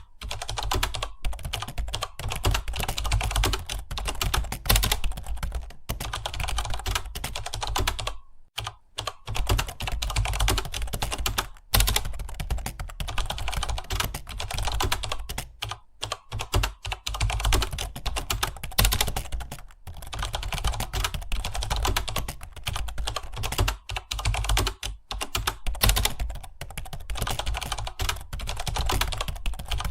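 Fast, continuous typing on a computer keyboard, a dense run of key clicks with a brief pause about eight seconds in.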